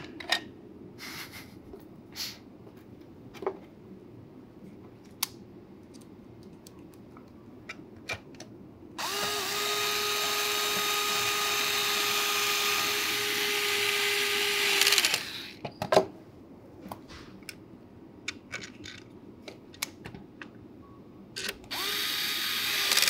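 Small electric screwdriver driving M3 screws into a 3D-printed plastic blaster shell: one steady, even-pitched run of about six seconds in the middle, and a second run starting near the end. Light clicks and taps of small parts being handled between the runs.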